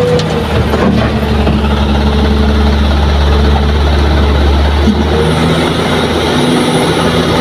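Diesel engine of a Kobelco hydraulic excavator running steadily under load as the machine swings back from the dump truck. The deep engine drone eases about five seconds in.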